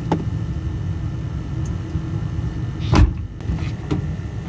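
A vehicle engine idles with a steady low rumble. One loud thump comes about three seconds in, with a few lighter clicks around it.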